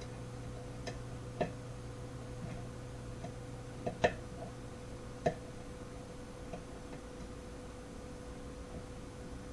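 Light metallic clicks from the pins of a pin-tumbler challenge lock being worked with a pick and tension wrench, a handful of irregular ticks as pins set or slip, over a faint steady hum.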